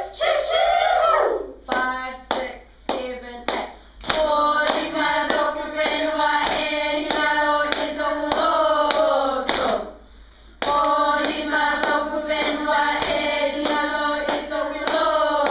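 A class of children singing a Tuvaluan haka in unison, keeping time with steady hand clapping. The singing breaks off briefly about ten seconds in, then picks up again.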